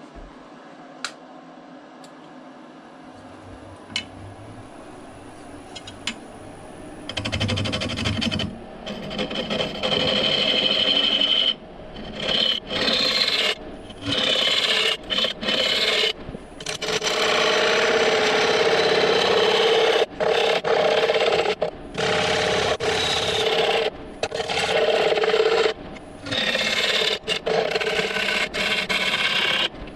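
Bowl gouge cutting the inside of a spinning apple wood bowl on a lathe: a loud rough scraping that starts about seven seconds in and keeps breaking off and resuming as the tool engages and lifts off the wood. Before it there are a few light clicks, and a low hum comes in about three seconds in.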